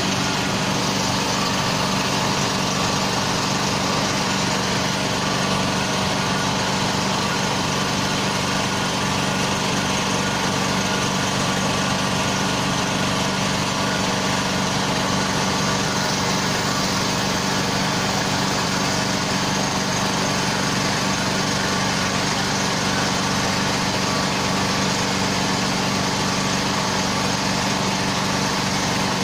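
Bucket truck's engine idling steadily, an even hum with a hiss over it and no change in speed.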